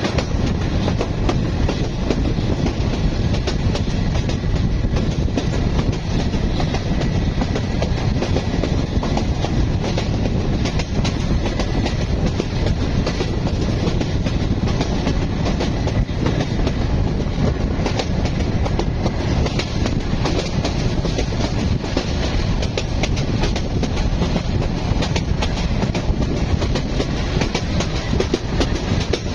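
A train running steadily along the track: a constant rumble with the clickety-clack of wheels over rail joints.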